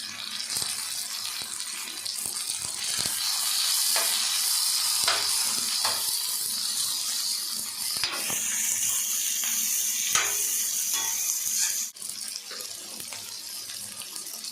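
Onions, green chillies, capsicum and ginger-garlic paste sizzling in hot oil in a kadai, with a spatula scraping the pan now and then as it is stirred. The sizzle drops quieter suddenly about twelve seconds in.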